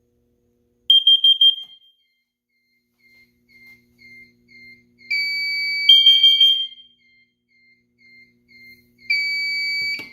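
Carbon monoxide detector on a fire alarm system in alarm: a group of four quick, high beeps, the CO alarm pattern, repeating about five seconds later. Between them, a lower steady alarm tone sounds in blasts of about a second, and a faint short chirp repeats underneath.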